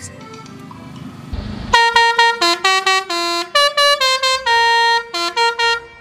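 Basuri musical air horn (a telolet horn) on a mini truck playing one of its preset tunes: a quick run of separate bright honked notes stepping up and down, starting about two seconds in after a short stretch of noisy hiss.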